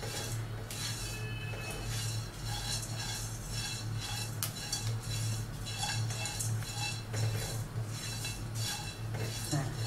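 Spatula stirring whole spices as they dry-roast in a non-stick kadai: irregular scrapes and light clinks against the pan, over a steady low hum.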